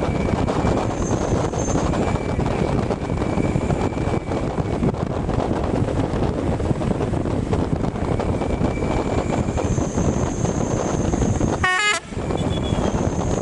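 Steady rush of wind and road noise from a moving bus, heard from its roof. Near the end the bus's multi-tone roof horns give a short stepped-pitch toot.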